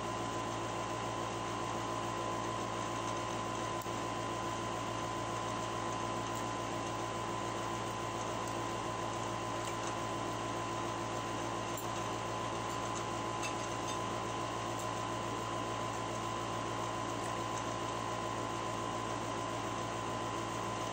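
Steady machine hum and hiss with a constant thin whine, unchanging throughout, like a running fan or air-conditioning unit in a small room. A few faint clicks, from handling the shrimp and plate, sit on top.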